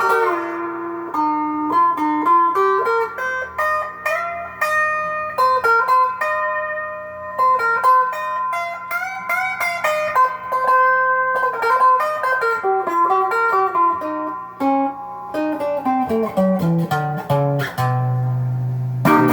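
Gearit Telecaster-style electric guitar playing single-note lead lines with slides between notes. Near the end a descending run lands on a low held note.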